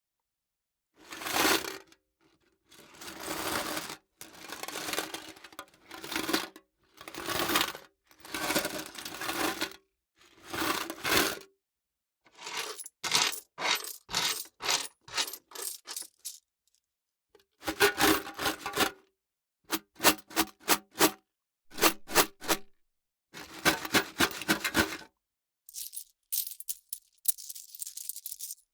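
Metal coins clinking and jingling in a string of separate short bursts with brief silences between them. Some bursts are a dense jangle of many coins. Others are quick runs of single clinks, a few per second, and near the end there is a thinner, higher jingle.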